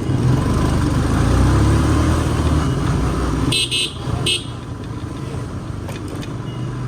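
Motorcycle engine and road noise while riding, with a vehicle horn honked in three short toots about three and a half to four and a half seconds in.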